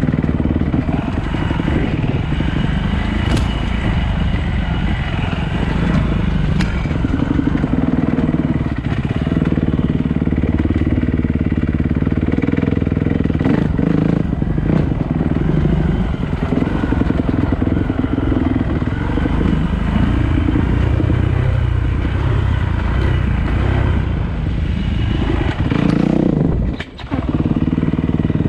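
Dirt bike engine running on a rough trail, its pitch rising and falling as the throttle is opened and closed. Near the end the engine sound drops away sharply for a moment, then picks up again.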